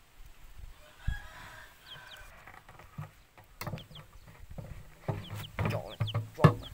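Chickens clucking in the background, with short high chirps. Knocks and rattles from a plastic water jug and a metal sprocket being handled, the loudest near the end.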